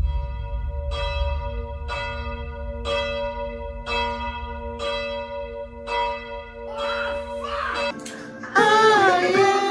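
A deep bell tolling six times, about once a second, each stroke ringing on over a low rumble. Near the end it gives way to loud voices singing.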